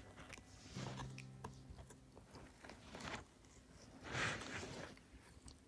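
Samoyed puppy gnawing on a raw peeled carrot: irregular chewing and crunching, loudest about four seconds in.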